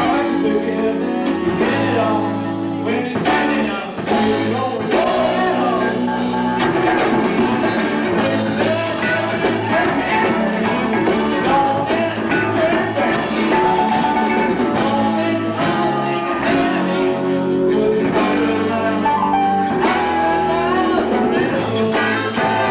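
Rock band playing a blues-rock number, electric guitar to the fore over a moving bass line.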